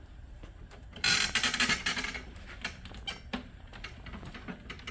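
A laser printer being handled and shifted on a work surface: a scraping rub about a second in, lasting about a second, then scattered light clicks and knocks of its plastic housing.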